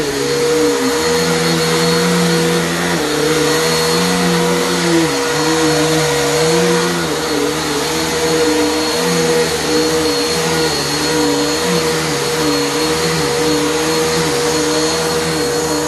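CentrumForce vacuum cleaner running steadily as it is pushed back and forth over carpet, picking up dry soil and carpet powder. Its motor hum dips in pitch and recovers about once a second with each stroke.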